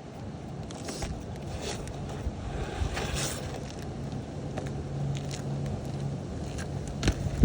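Faint scraping and a few light taps of roofing work on asphalt shingles, over wind on the microphone and a low steady hum; a sharper tap comes near the end.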